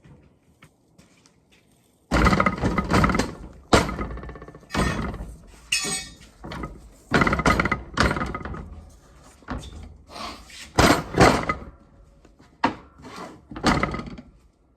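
Hand tools working a part off a Dodge M37's steel windshield frame: a run of irregular scraping and banging strokes, with a few sharp metal knocks.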